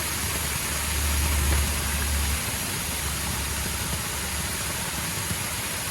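Steady rush of a small bush waterfall after rain, with a low rumble that swells for about two seconds near the start.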